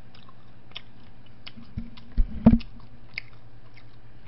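Close-miked chewing of a mouthful of pizza: many small, sharp, wet mouth clicks, with two louder low thumps a little after two seconds in.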